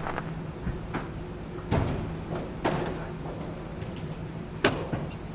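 A few sharp knocks and thuds echoing in a concrete parking garage, the loudest about four and a half seconds in, over a steady low hum.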